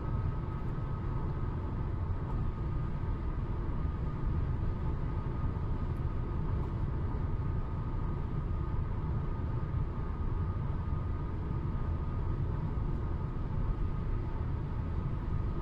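Road and engine noise of a car driving at highway speed, heard from inside the car: a steady low rumble with a faint steady whine above it.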